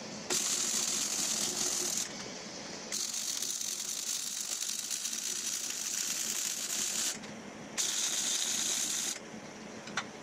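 MIG welder arc crackling in three welds on a steel tube axle, the first about two seconds long, the second about four, the third about a second and a half, with short pauses between them. A single sharp click near the end.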